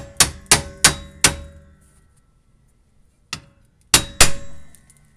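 Steel hammer striking the rear wheel hub's backing plate to knock a seized old wheel bearing hub assembly loose on a 2005 Toyota Prius. Five quick ringing metallic blows, then a pause of about two seconds and three more.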